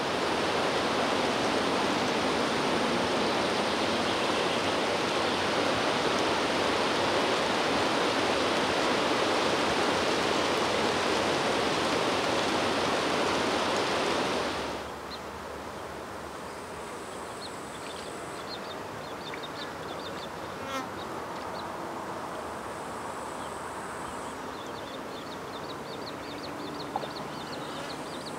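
A steady, loud rush of water cuts off abruptly about halfway through. It gives way to a quieter pond-side background with small birds calling in rapid high trills and chirps, and a faint high insect buzz.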